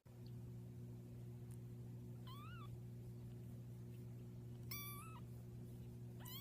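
A domestic cat meows twice, a short call that rises and falls about two seconds in and a flatter one nearly five seconds in, over a steady low hum.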